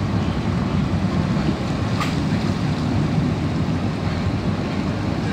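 Steady low rumble of the KM Sinabung passenger ship's engines and propeller wash as it manoeuvres alongside the quay, with one short click about two seconds in.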